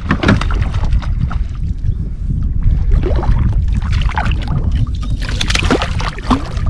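Lake water slapping and sloshing against a kayak hull over a steady low rumble; about five seconds in, a hooked kokanee thrashes and splashes at the surface beside the kayak.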